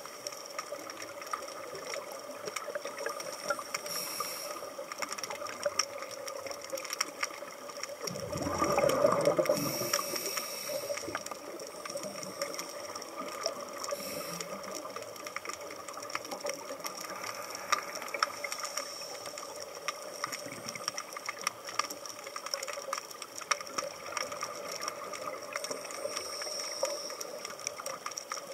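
Underwater ambience: a steady crackle of fine clicks over a faint hum, with a louder rush of scuba exhaust bubbles for about two seconds around eight seconds in.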